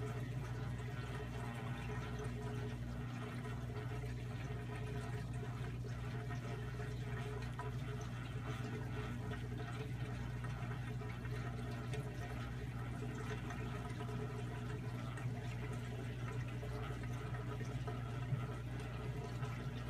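Aquarium filter running: steady water flow over a low, even hum. There is one brief tap near the end.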